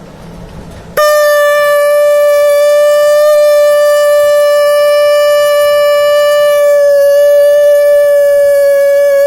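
Conch shell (shankh) blown in one long, loud, steady note, starting about a second in.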